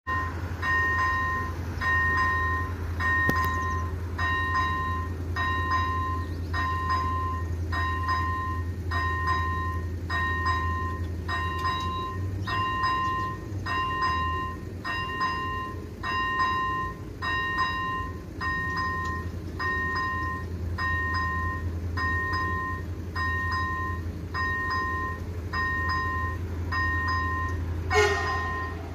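Railway level crossing's electronic warning bell ringing, an even two-tone ding repeating about once a second over a steady low hum. A sharp knock comes near the end.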